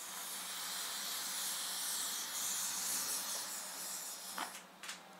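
Grainy propellant powder from WW2 rifle cartridges burning on a paper towel with a steady hiss that fades about four seconds in, followed by a few crackles. The old propellant still ignites and burns.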